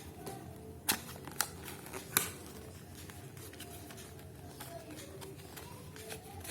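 Hands handling a smartphone box and its packaging: four sharp clicks and taps in the first two and a half seconds, then only faint handling noise.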